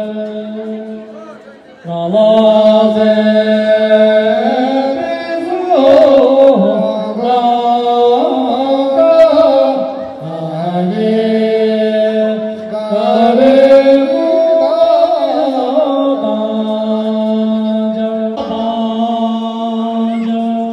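Singing in long, held notes that slide from one pitch to the next, with short breaks between phrases.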